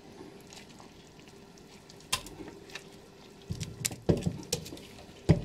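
Processed apple pulp scraped with a silicone spatula out of a plastic food processor bowl and dropping into a pot. There is a sharp click about two seconds in, then a run of soft thuds and clicks in the second half.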